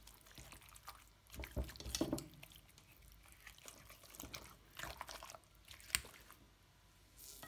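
Silicone spatula and hand mixing spice-coated raw chicken pieces in a glass bowl: faint, wet stirring sounds that come in irregular bursts, with a sharp click about six seconds in.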